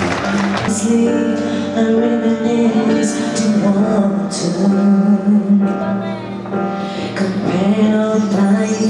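The percussive music of the previous act gives way about a second in to a woman singing into a microphone over a backing track, with long held notes.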